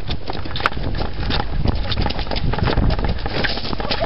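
A burning VCR and aerosol-can debris crackling, with dense irregular crackles and pops over a low rumble, and one sharp snap about two-thirds of a second in.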